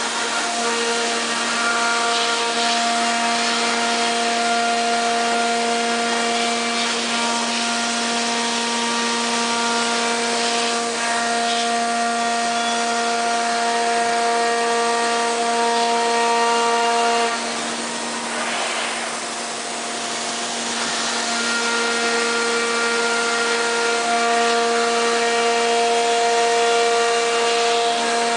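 CNC nested-based router cutting sheet stock: a steady high-speed spindle whine over the noise of the bit cutting. A bit past halfway the whine fades for a few seconds, then returns.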